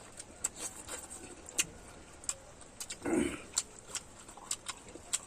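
Eating sounds close to the microphone: scattered sharp wet clicks and smacks of chewing, with one fuller, lower mouthful sound about three seconds in.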